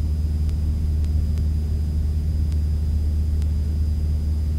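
Cessna 172's piston engine and propeller droning steadily at cruise, heard from inside the cabin as a deep even hum over a hiss.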